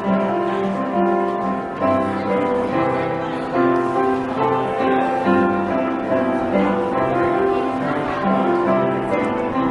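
Instrumental piano music played as the closing postlude, with chords changing about every half second to a second.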